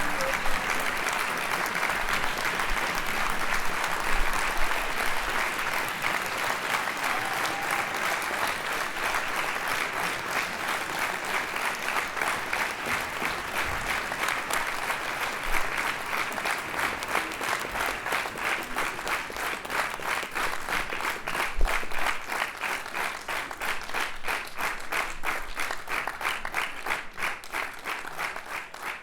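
Crowd applauding: dense, steady clapping that thins over the last several seconds, so that single claps stand out, and begins to die away near the end.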